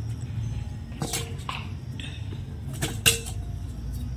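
Metal tongs scraping and clicking in smouldering cow-dung-cake ash while digging out baked litti: a few sharp clicks around a second in and again around three seconds in, the last the loudest, over a low steady rumble.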